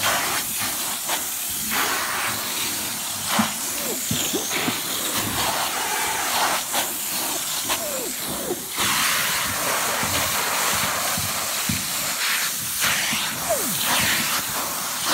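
Upholstery hand tool of a hot-water extraction cleaner drawn over seat fabric: a steady hiss of spray and vacuum suction, with short irregular squeaks and slurps as it passes over the cloth.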